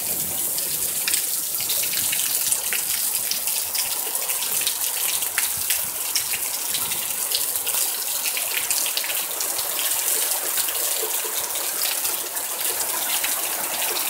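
Heavy thunderstorm rain pouring down: a steady hiss of falling water with many close drops striking.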